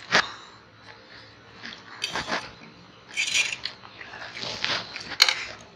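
Eating at a table: instant noodles slurped and chewed, with forks clicking and scraping on steel plates, the sharpest clicks just after the start and about five seconds in.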